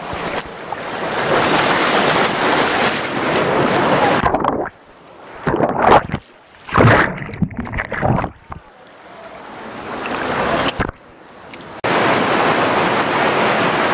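Rushing canyon water, a steady noisy rush. About four seconds in it turns muffled and patchy, with short loud bursts and sudden drops, as the action camera goes into the water; near the end the steady rush returns.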